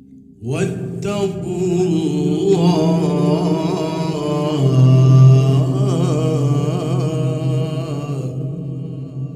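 A man reciting the Quran in the melodic tajweed style through a microphone: one long, ornamented phrase with a wavering, sliding pitch that begins about half a second in and dies away about a second before the end.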